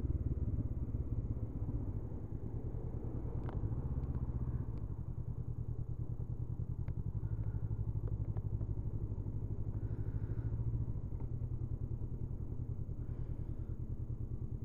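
Honda CB500F's parallel-twin engine running steadily as the motorcycle is ridden, its level rising and dipping a little as the throttle is eased and opened.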